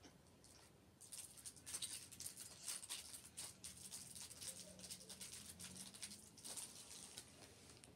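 Clear plastic snack wrapper crinkling and crackling as it is handled, starting about a second in and stopping about a second before the end.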